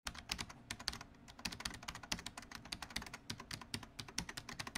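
Fast computer-keyboard typing: an unbroken run of irregular keystroke clicks, several a second.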